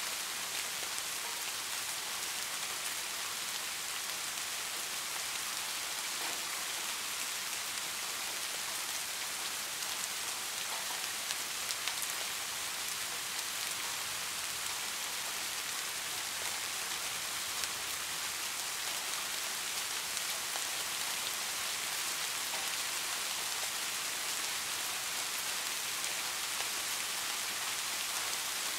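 Steady heavy rain: an even hiss with faint scattered drop ticks.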